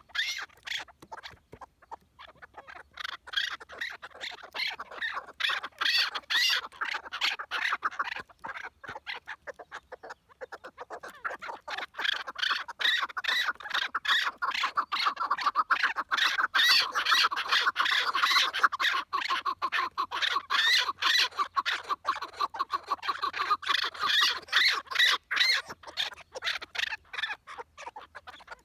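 Several caged chukar partridges calling together in a rapid, continuous chorus of repeated notes. The calling drops off briefly about ten seconds in, then comes back louder.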